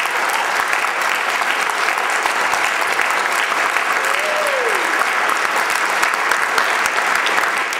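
Audience applauding loudly and steadily after a spoken-word performance, with one voice calling out in a falling cheer about four seconds in.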